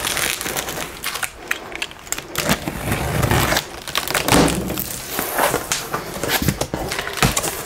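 A box cutter slitting the packing tape on a cardboard box, then the cardboard flaps being pulled open: scraping, crinkling and rustling with a few sharp knocks.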